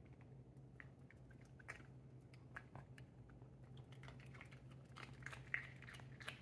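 British Shorthair munchkin cat eating from its bowl: faint, quick chewing and crunching clicks that come thicker towards the end, with one sharper click about five and a half seconds in, over a steady low hum.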